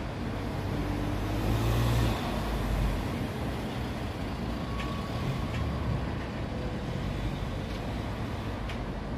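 Steady road traffic noise, with a heavy vehicle's low rumble swelling louder between about one and three seconds in, then settling back.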